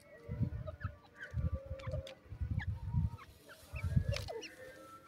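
Grey francolin giving low, soft clucks in four short bouts about a second apart, with small birds chirping high in the background.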